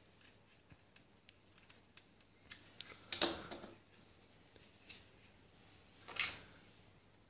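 Wooden PPSh-41 replica being handled. A few light clicks come from a small tool worked in its receiver, then two louder wooden clacks with a short scrape, about three seconds apart, the second as the hinged receiver is swung open.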